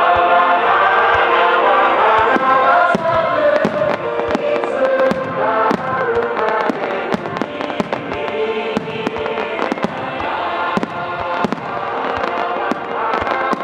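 Fireworks bursting and crackling in quick, dense succession over a song with held notes. Many sharp pops and crackles come throughout.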